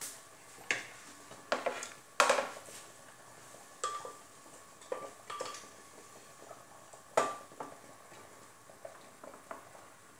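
Kitchenware clatter as cooked rice is served from an aluminium pressure cooker onto a plate: a plate set down on the steel stove top, then a spatula knocking and scraping against the cooker. There are about a dozen sharp knocks, some with a brief metallic ring; the loudest comes about two seconds in, and they get fewer and softer toward the end.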